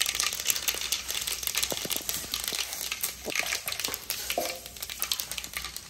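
Mustard seeds and urad dal crackling and popping in hot sesame oil, a dense run of sharp, irregular pops over a faint sizzle: the seeds spluttering as they hit oil hot enough for tempering.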